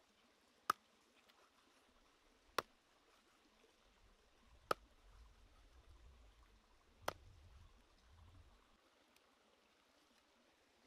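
A cleaver chopping a raw chicken neck into pieces on a round wooden chopping board: four sharp chops, about two seconds apart.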